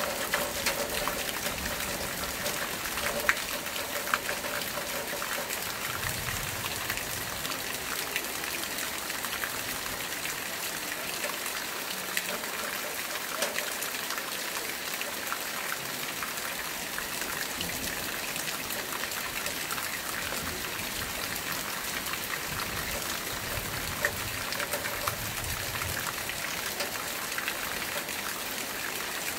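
Steady rain falling, an even hiss with now and then a louder drop or tap, a few of them in the first few seconds.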